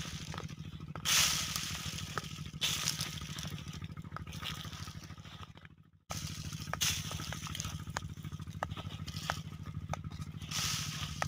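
Urea fertilizer granules thrown by hand, pattering onto soil and leaves in several hissing showers a second or two apart, over a steady low hum.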